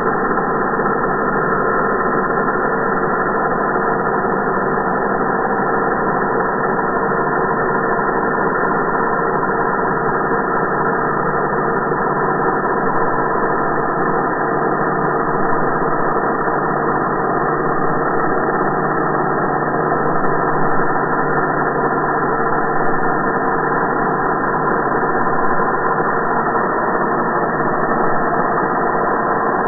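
Angle grinder sound slowed down to slow-motion speed: a deep, steady droning hum of several held tones, with no high end.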